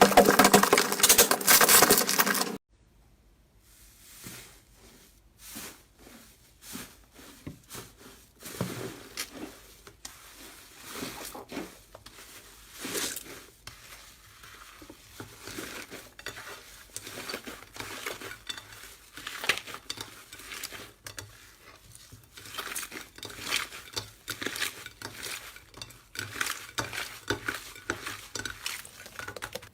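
Slime being handled: irregular small clicks, crackles and squishes. A louder, denser stretch of sound stops abruptly about two and a half seconds in, and quieter handling noises follow.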